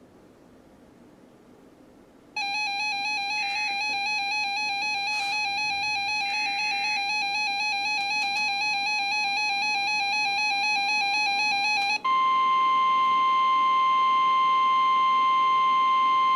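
Emergency alert tones. About two seconds in, a wavering electronic alarm tone sounds for about ten seconds. It switches without a break to a steady single-pitch tone, the NOAA Weather Radio warning alarm tone that signals an urgent warning is about to be read.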